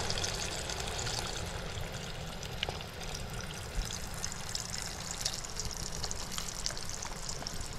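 Breaded catfish fillets deep-frying in a steel pot of hot oil: a steady sizzle flecked with small pops.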